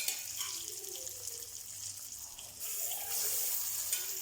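Marinated chicken pieces sizzling and crackling as they go into hot oil in an iron kadai. The sizzle grows louder about two and a half seconds in.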